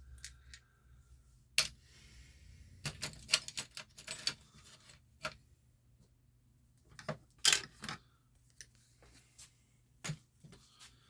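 Light clicks and clatters of small hard parts and tools being handled on a workbench while an RC car is taken apart, in irregular short clusters.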